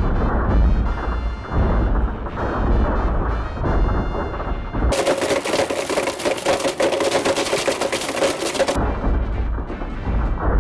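Two Blendtec blenders running at full speed, grinding smartphones to pieces with a dense, rough crashing clatter, under background music. About five seconds in, the sound turns brighter for some four seconds, with a steady motor whine, then goes back.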